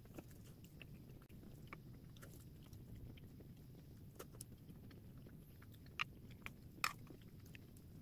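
Faint scattered crackles and pops from chicken-breast sausages frying in a pan. Two louder pops come about six and seven seconds in, over a low steady hum.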